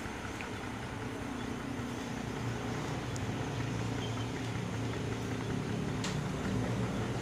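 Low steady hum of a distant engine that grows a little louder a couple of seconds in, over outdoor background noise.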